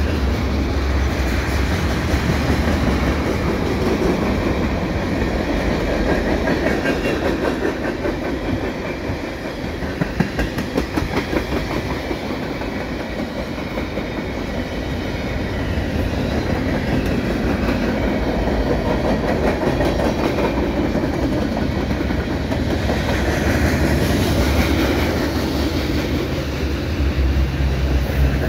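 Freight cars of a mixed freight train (tank cars, flatcars and covered hoppers) rolling past on the rails: a steady rumble of wheels with clickety-clack over the rail joints. There are a few sharper clanks about ten seconds in, and the deep rumble builds near the end.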